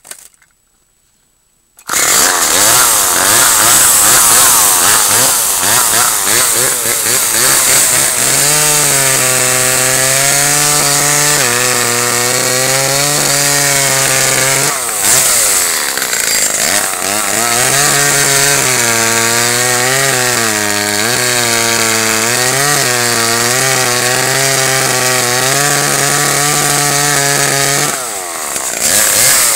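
Homelite two-stroke chainsaw bucking firewood logs. It comes in suddenly about two seconds in, loud, and runs at high revs, its note sagging and wavering as it works through the cuts. The note eases briefly midway and drops back near the end.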